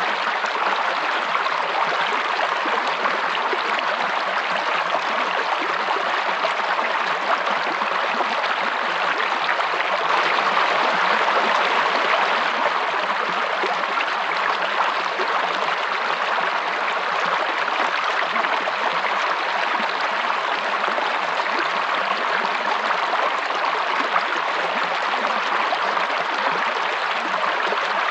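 Stream of water running steadily, an even rushing sound with no separate splashes or other sounds standing out.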